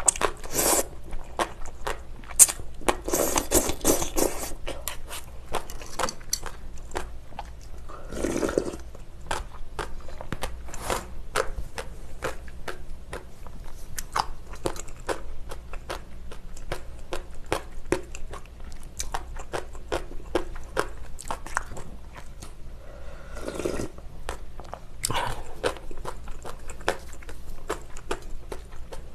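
Close-miked eating sounds of spicy bibim-naengmyeon cold buckwheat noodles: a few noodle slurps, the longest about three seconds in, and in between steady chewing full of small wet, crunchy mouth clicks.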